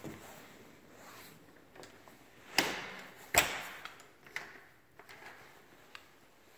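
An interior door being handled: two loud knocks about a second apart, then a few lighter clicks.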